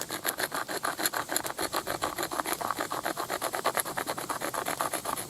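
Deer leg bone rubbed rapidly back and forth on sandstone, a fast even run of gritty scraping strokes about five or six a second, as the bone's edge is ground square.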